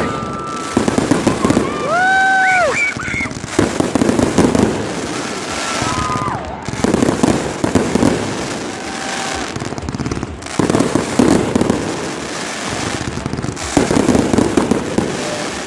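Fireworks going off in waves of rapid crackling and popping, a fresh cluster every two to three seconds, with a few brief whistling tones near the start.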